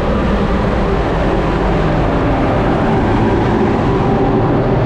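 Loud, steady noise of a cargo ship's engine-room supply fans running on the open deck, over a low machinery hum.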